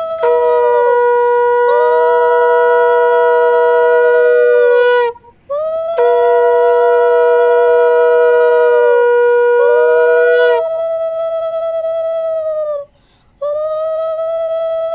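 Two conch shells (shankh) blown together at slightly different pitches, in long sustained blasts of about five seconds with short breath breaks between. One note holds level while the other sags at the end of each breath. This is ritual conch-blowing for the evening puja.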